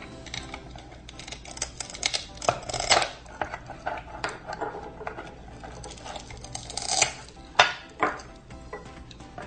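Plastic toy knife knocking and scraping on a toy cutting board as a velcro-joined play-food orange is cut apart: a string of short clacks, the sharpest about seven and a half seconds in. Background music runs underneath.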